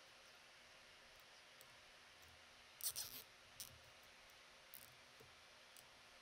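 Plastic zip ties being worked through their locks on a stainless steel strainer: a short run of quick ratcheting clicks about three seconds in, then a few single clicks.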